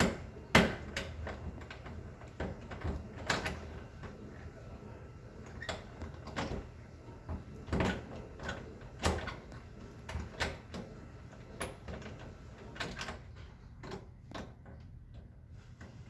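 Irregular clicks, knocks and rattles of a locked bathroom door's privacy lock and knob being worked at to force it open, with a sharp knock near the start.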